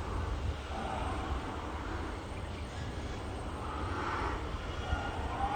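Pigs awaiting slaughter squealing, several wavering cries coming and going: about a second in, around four seconds in and again near the end. Under them is a steady low rumble.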